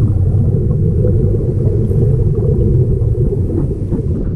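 Steady, muffled low rumble of underwater sound picked up through a sealed underwater camera housing, with a few faint clicks.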